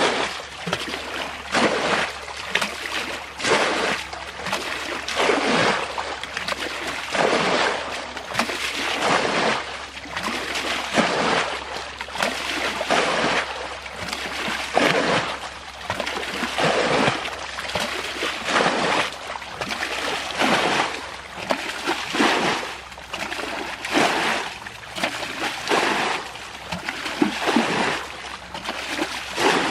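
Water splashing and sloshing in uneven surges, roughly one a second.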